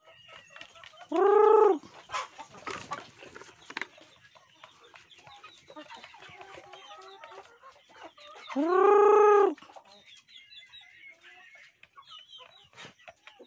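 Chickens feeding at a wooden trough: a loud drawn-out call about a second in and another near nine seconds, with soft clucking and scattered pecking taps between.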